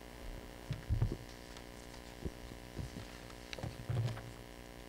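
Steady electrical mains hum in the sound system, with a few faint low thumps scattered through it.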